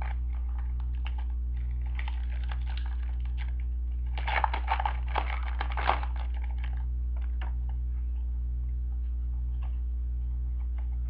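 Trading cards being handled: light clicks and rustles of cards slid and flipped through by hand, busiest about four to six seconds in, over a steady low electrical hum.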